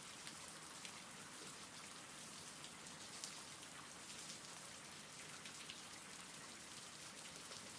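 Faint, steady rain ambience, an even patter with scattered small drop ticks.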